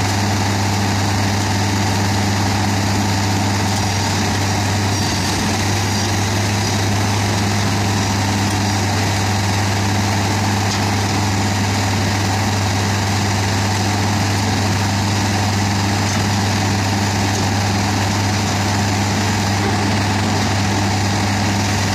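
Doppstadt DW 3060 slow-speed shredder's diesel engine running at a steady, unchanging pitch while it shreds brush, with a deep hum and no distinct impacts.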